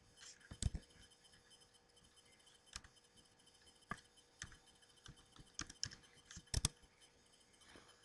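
Scattered clicks of a computer keyboard and mouse, about eight in all, with the loudest pairs about half a second in and near the end. Under them is a faint steady electrical hum.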